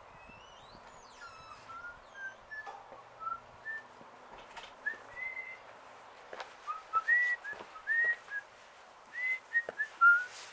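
A string of short, clear whistled notes, each sliding up or down, scattered irregularly and loudest in the second half. A few higher chirps come about a second in, and there are a few soft knocks.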